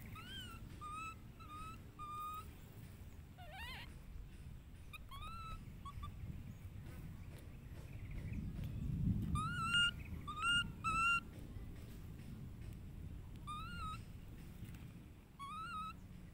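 Baby macaque giving a string of short, high-pitched coo calls, each rising then falling, with a cluster of three louder ones about ten seconds in. A low rumble swells just before them.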